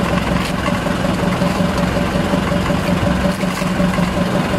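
Outrigger fishing boat's engine idling with a steady, even hum.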